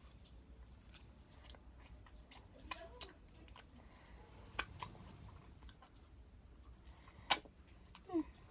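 Mouth sounds of someone eating Marshmallow Fluff: a few short, sharp lip-smack clicks spread out over several seconds, the loudest about seven seconds in.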